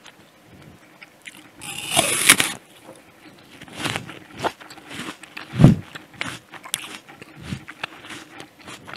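Close-miked bite into a crisp, juicy Jazz apple about two seconds in: one long, loud crunch. It is followed by several seconds of crunchy chewing, with a loud low thump a little past halfway.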